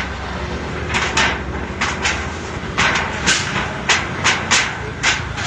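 Irregular sharp knocks and bangs, about ten in five seconds, from wreckage of a wind-collapsed shelter being cleared by hand, over a steady low rumble of road traffic.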